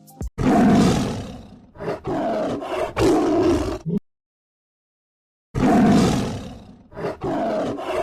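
Tiger roaring: three roars in a row, the first the loudest and longest. After a pause of about a second and a half, the same three roars come again.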